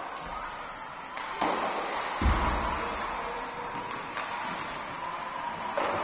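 Youth ice hockey play: skates and sticks on the ice, with a heavy thud about two seconds in from a hit against the rink boards, and another sharp knock near the end.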